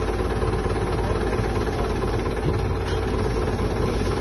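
Diesel engine of a KATO truck-mounted crane idling with a steady low rumble.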